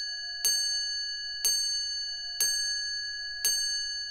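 A bell-like chime struck about once a second, four times, each strike ringing on until the next: a countdown chime, one strike per number.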